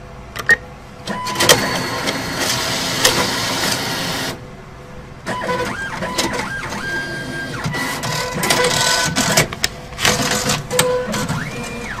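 Cash-handling machinery whirring and rattling as it feeds banknotes, in two runs with a short pause after about four seconds, preceded by two clicks. Short electronic beeps at different pitches sound over the second run.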